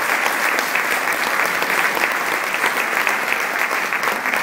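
Audience in a hall applauding: many hands clapping in a dense, steady patter.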